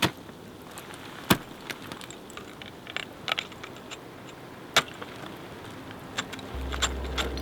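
A string of sharp clicks and knocks, the loudest a little over a second in and near five seconds in, with faint clicks between. A low steady drone comes in about six and a half seconds in.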